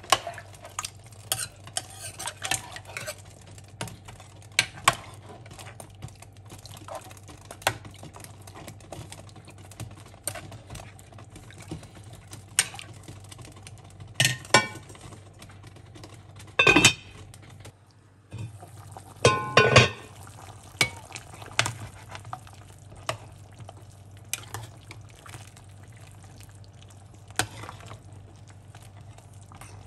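Ladle and spoon stirring a thick stew in an enamelled pot, clinking and scraping against the pot's side and bottom in scattered short knocks. There are louder clatters about 14 s, 17 s and 20 s in.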